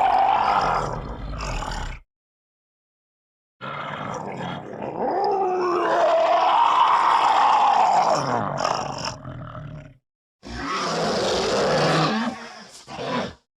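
Cartoon roar sound effects: three separate roars split by short silences, the middle one about six seconds long with pitch that rises and then falls.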